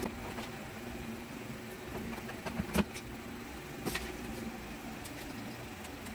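Small clicks and taps of a battery cable lug and terminal hardware being handled and fitted on a sealed lead-acid battery's terminal, with two sharper clicks about three and four seconds in, over a steady low hum.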